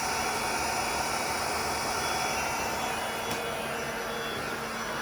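Electric air pump running steadily, inflating a children's inflatable paddling pool.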